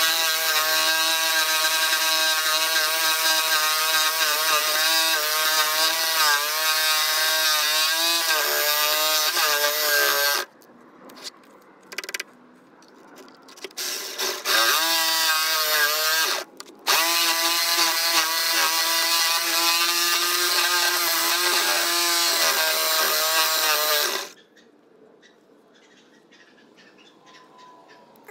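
Corded jigsaw with a 10-inch wood blade sawing through a thick timber beam, its motor whine wavering in pitch as the blade loads up in the wood. It runs for about ten seconds, stops, starts again in a few short bursts, then runs for another seven seconds or so and stops a few seconds before the end.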